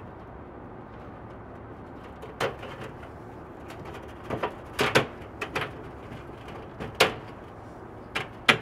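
White plastic tube ring being pressed down onto the rim of a Solatube 750 DS metal tube, its tabs seating in the tube's notches: a scattering of sharp clicks and knocks, about seven, starting about two seconds in.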